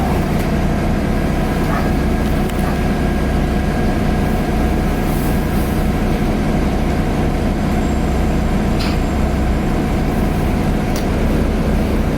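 Cabin sound of a 2010 Nova Bus LFS articulated bus underway: its Cummins ISL diesel engine runs steadily with a thin whine above the drone. There is a short sharp rattle about nine seconds in.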